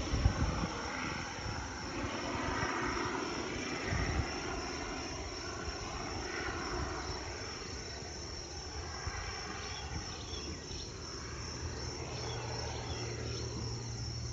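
Single-engine turboprop of a Cessna 208B Grand Caravan passing over on its landing approach, a broad whooshing drone that swells and slowly fades away. Crickets chirp faintly as it dies down, and there are two low bumps on the microphone, one at the start and one about four seconds in.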